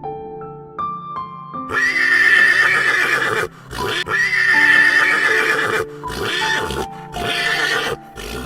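Horse neighing: two long whinnies, then a few shorter calls, over background music.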